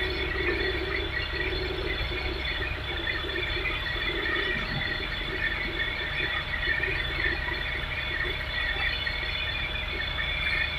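Hitachi ZX225USR excavator working, its engine and hydraulics running steadily with a high whine over the drone.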